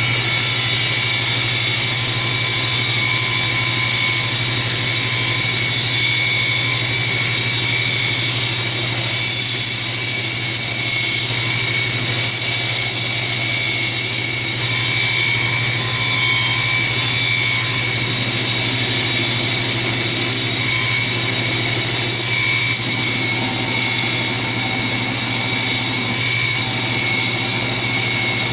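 Grinder running at steady speed with a high whine and hiss while a steel vise jaw insert is ground against it for a spark test, which judges the steel's carbon content from the sparks.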